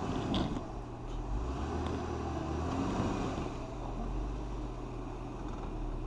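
Jeep Wrangler engine running at a steady idle, a low hum, with a few faint clicks.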